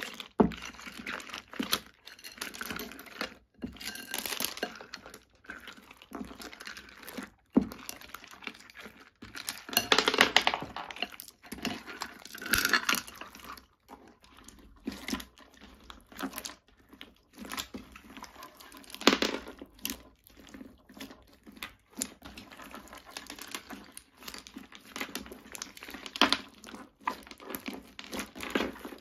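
Slime mixed with beads, charms and glitter being squished, stretched and folded by hand, with irregular sticky crackling and a few sharp clicks.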